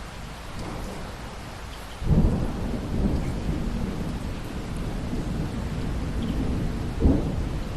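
Steady rain, with a thunderclap breaking about two seconds in and a deep rumble rolling on, then a second sharp crack near the end.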